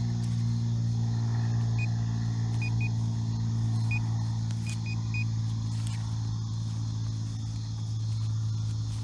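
Short high electronic beeps from a metal detector sounding on a target: about seven, single and in quick groups, over the first five seconds. A steady low hum, the loudest sound, runs underneath.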